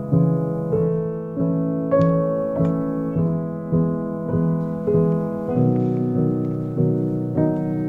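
Background piano music: slow, even notes over held chords, a new note about every 0.6 s, the harmony moving to a lower chord about five and a half seconds in.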